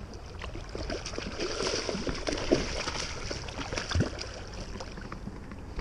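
A hooked fish splashing and thrashing at the water's surface beside a small inflatable boat, loudest in the first half. Over it come rustling and small knocks, with one dull thump about four seconds in.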